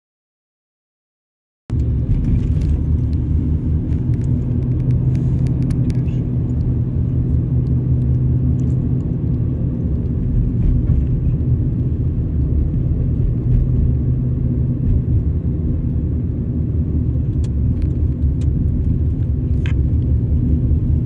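Steady low rumble of a moving car heard from inside the cabin: engine and tyre noise. It starts about two seconds in, after a stretch of dead silence.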